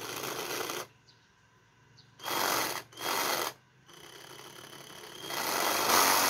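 X2000 battery-powered mini reciprocating saw running with no blade fitted, its blade clamp stroking back and forth under the variable-speed trigger. Four short bursts, then a longer run that starts slow about four seconds in and speeds up, louder, near the end.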